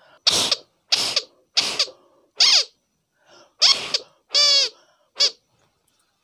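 Crier from an old Pedigree doll blown through by mouth: about seven short, breathy blasts, several carrying a reed cry that falls in pitch, the longest and clearest a little after the middle. The reed still sounds, so the reed itself works.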